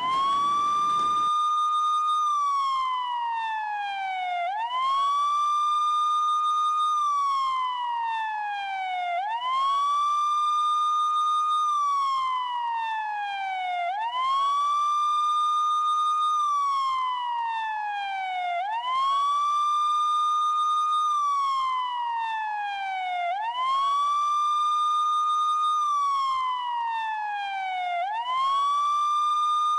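Police siren wailing: each cycle rises quickly, holds its high pitch for about two seconds, then slides slowly down, repeating about every four to five seconds.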